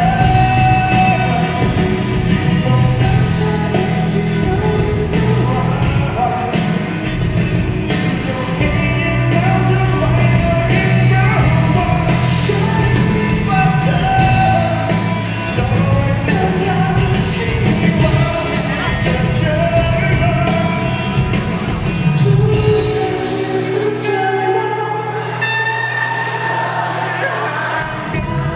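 Live rock band playing: a man sings lead over electric guitar, bass guitar, keyboard and drums. About 23 seconds in, the bass and drums drop out, leaving the voice with lighter guitar and keyboard.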